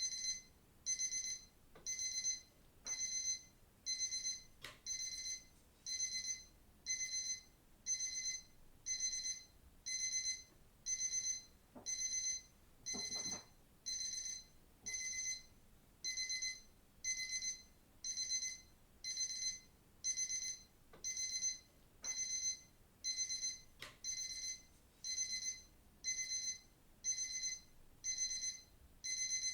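Digital watch alarm beeping: short high-pitched bursts of beeps, each about half a second long, repeating steadily about once a second.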